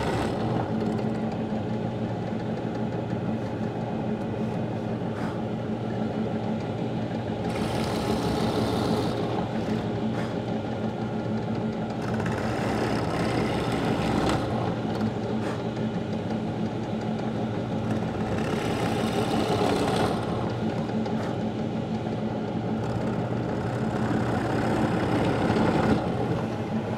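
Drill motor running steadily with a Forstner bit boring out the waste from dovetail sockets in wood. The cutting noise swells three times, around 8, 13 and 19 seconds in, as the bit is plunged into the wood.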